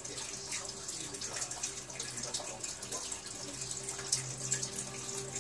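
Eastern box turtle munching on lettuce: a run of irregular, crisp crackles and clicks as it bites and chews, over a faint steady hum.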